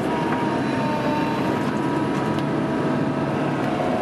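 A large excavator's diesel engine and hydraulics running steadily, heard from inside the cab.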